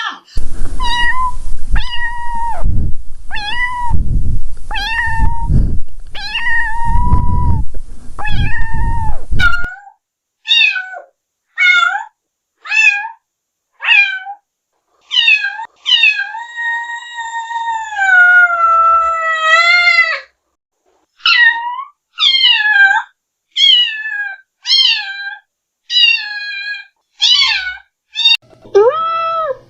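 Cats meowing: a quick run of short meows over a low rumbling noise for the first ten seconds, then separate short meows, one long drawn-out meow that falls in pitch, and another run of short meows.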